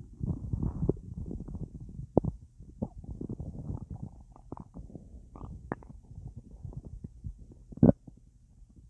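Human stomach gurgling on a full belly holding a lot of gas after a big meal and a drink. A dense run of bubbly gurgles in the first second or two thins out into scattered pops and squeaks, with one louder gurgle near the end.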